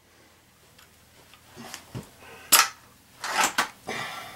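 A tuned Ruger Air Magnum break-barrel spring-piston air rifle fires once: a sharp crack just past halfway, with the pellet reading about 1,214 fps, faster than sound. Soft knocks come before it, and a second loud burst of knocks follows about a second later.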